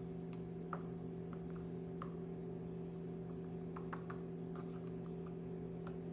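A steady low hum of several tones, with faint scattered light clicks of a metal spoon touching a ceramic bowl as melted chocolate is spooned over a pretzel rod.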